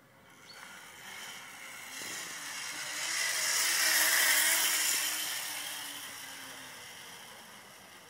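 Zip-line trolley pulley running along a steel cable: a whirring hiss that builds over about four seconds as the rider passes close, then fades away.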